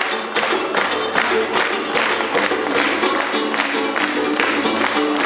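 Georgian folk music played live: small lutes strummed and plucked over a hand drum, with an even, fast beat of sharp hits and hand-clapping.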